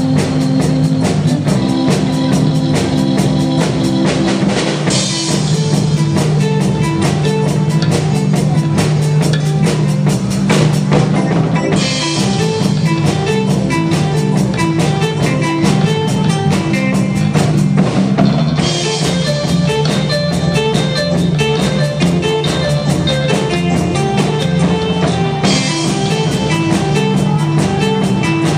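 Live instrumental rock band playing: a Pearl drum kit keeping a steady beat under electric lead guitar, bass guitar and keyboard, with cymbal-heavy stretches that come and go every several seconds.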